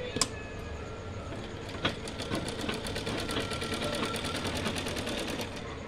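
Sewing machine stitching a seam through cotton fabric: a fast, even clatter of needle strokes starts about two seconds in and stops shortly before the end. Two sharp clicks come before it.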